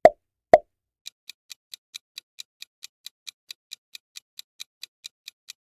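Two short pop sound effects as quiz answer options appear. About a second in, a countdown timer's clock-tick sound effect starts: quick, steady ticking at about four and a half ticks a second.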